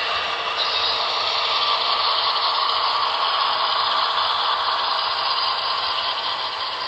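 HO scale model train of double-stack container cars rolling past on the track, a steady rattle of small metal wheels over rails and joints.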